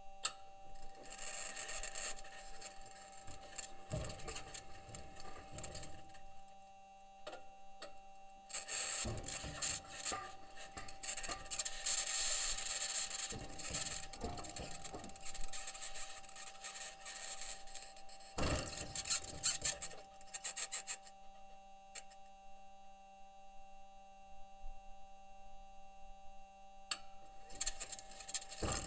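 Perseverance rover's metal wheels crunching and scraping over Martian rock and soil, in uneven grinding stretches, heaviest about a third of the way in. A steady high squeak-like tone runs under it, a squeak that raises the question of a possible problem with the rover.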